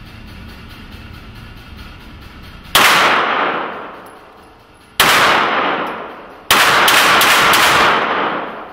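Handgun shots on an indoor range, each followed by a long echoing decay. There is one shot about three seconds in and another near five seconds, then a rapid string of several shots near the end.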